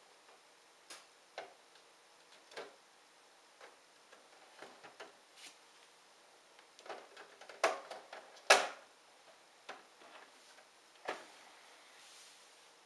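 Scattered clicks and knocks of hard plastic as a Peppa Pig toy play house is handled and its walls are swung open, with the two loudest knocks a little past the middle.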